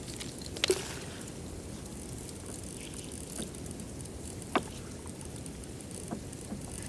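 Glacier sound: a steady low rush, likely meltwater, with a few sharp cracks or pings from the ice. The loudest comes about a second in and drops in pitch into a short ping; two fainter ones follow later.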